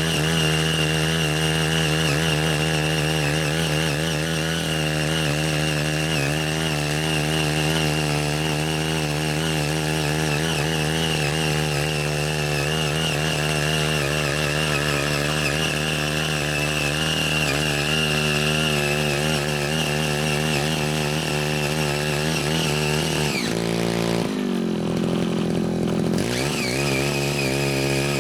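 Small petrol engine of a Ching Yee CY80 5 HP mini rotary tiller running steadily under load as its six rotary tilling blades churn orchard soil. About 24 seconds in the sound briefly changes character, then settles back to the same steady note.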